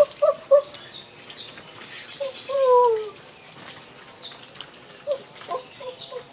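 Bird calls: a quick run of short hooting notes at the start, then one longer call falling in pitch a couple of seconds in, the loudest sound, and a few short notes again near the end, over faint scattered clicks.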